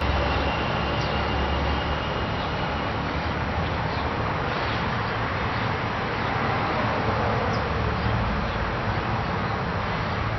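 Coleman Evcon heat pump outdoor unit starting up at the end of its time delay in cooling mode: the compressor and condenser fan come on suddenly with a low hum and rushing air, then run steadily.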